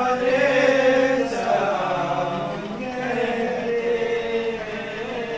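Men's voices chanting a devotional salaam to Imam Hussain, unaccompanied, in long drawn-out melodic notes that are loudest in the first couple of seconds and ease off a little after.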